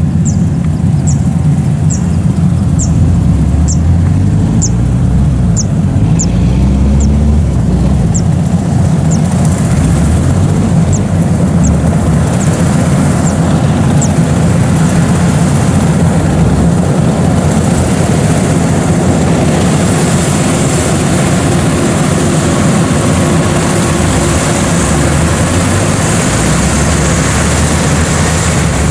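Kubota DC-105X rice combine harvester running loud and steady while cutting, its diesel engine note climbing in pitch around five to seven seconds in. A short high chirp repeats about every half second through the first half.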